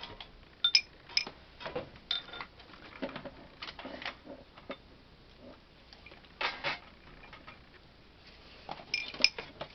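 Scattered light taps, clicks and rustles at uneven intervals, from paper and card pieces and tape being handled on a craft table.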